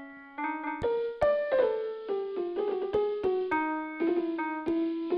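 GarageBand's 'Old Time Recording Keys' piano patch played note by note on a touchscreen keyboard: a string of struck piano notes that steps downward and then climbs back up, with a dull, old-recording tone and little treble.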